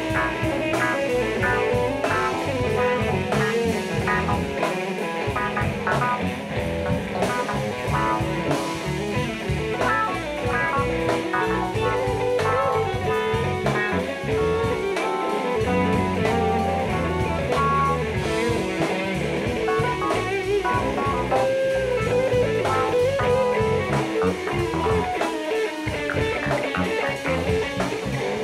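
Live jazz-funk band playing, with electric guitar and drum kit to the fore.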